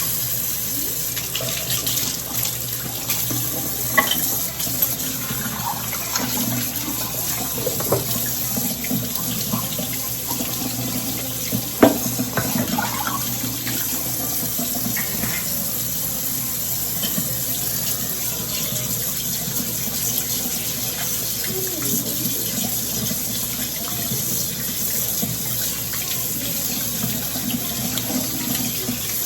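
Kitchen tap running steadily into a sink, switched on at the start, with a few sharp knocks of things handled in the sink.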